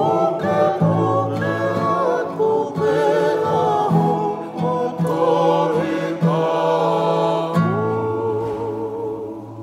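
Several men singing together in harmony over a strummed acoustic guitar and ukulele. Near the end they hold a last chord and the sound dies away.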